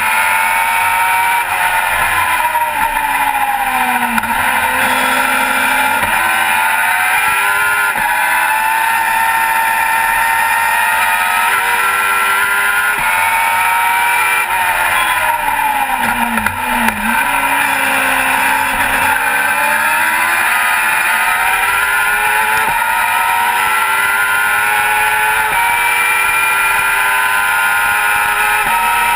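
A Global GT Light race car's engine heard from on board, run hard at high revs and climbing through the gears. The revs fall away sharply under braking and downshifts about 4 seconds in and again around 16 to 17 seconds, then build back up.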